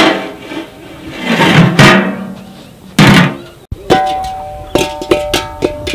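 Clattering of a steel pot and its metal lid, three loud ringing clanks. After a cut about two-thirds through, light background music of repeated plucked notes.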